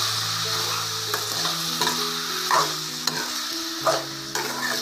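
Chopped tomatoes and onions sizzling steadily as they sauté in oil with no water added, stirred in a metal kadai with a metal spoon; the spoon scrapes against the pan several times.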